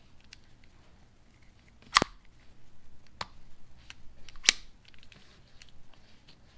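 Klein 8-in-1 adjustable-length stubby screwdriver being handled, its sliding shaft and bits clicking into place. Two sharp clicks about two and a half seconds apart, with fainter ticks between them.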